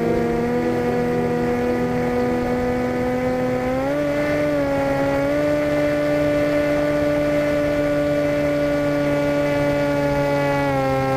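Zagi RC flying wing's motor and propeller heard from the onboard camera, a steady whine whose pitch rises about four seconds in and drops near the end as the throttle changes.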